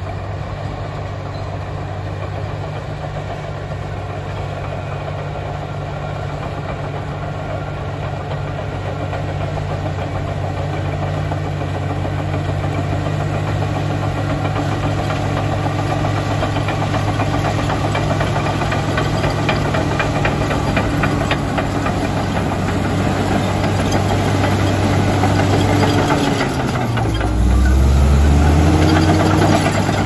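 Komatsu D85EX crawler dozer's diesel engine running steadily under load, growing louder as the machine comes closer, with clatter from its steel tracks. Near the end the engine note dips sharply and climbs back as the blade pushes a load of earth.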